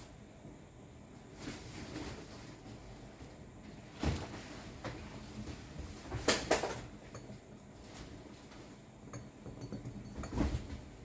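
A few sharp knocks and clatters of tools or parts being handled, about four in all, with a close pair in the middle, over quiet handling noise.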